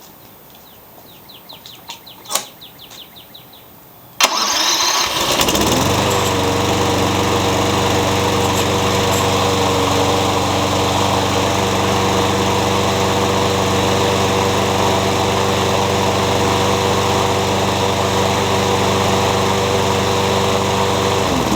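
A Troy-Bilt lawn mower's Briggs & Stratton Quantum engine started cold on its electric starter: a few clicks, then about four seconds in it cranks and catches at once, settles into a steady run within a couple of seconds, and is shut off right at the end.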